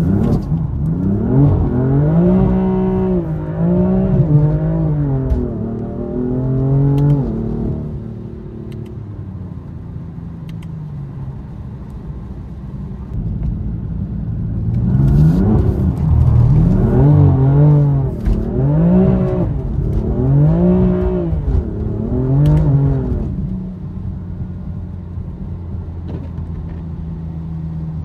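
BMW M4 Competition's S55 twin-turbo inline-six revving hard up and down in quick repeated swings, about one every second and a half, as the car is driven hard on wet streets. It drops to steady lower running about a third of the way in, then comes back with another run of rev swings, and settles to steady running again near the end.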